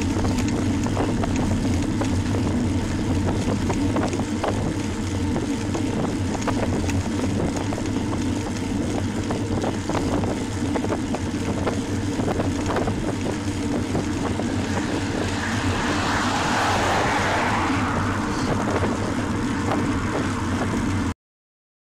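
Steady wind and road noise on a bicycle's rear-mounted camera while riding, with small rattles over bumps. About three-quarters of the way through, a car coming up from behind passes close, its tyre and engine noise swelling and fading. The sound cuts off abruptly about a second before the end.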